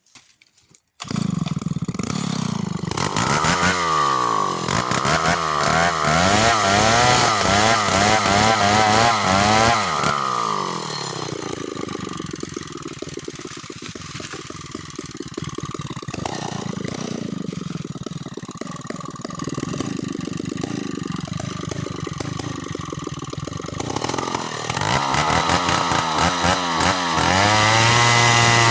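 Chainsaw with a 25-inch bar starting about a second in, engine speed swinging up and down, then running lower and steadier through the middle as it works through mango wood. It revs up to a high, steady full-throttle pitch near the end.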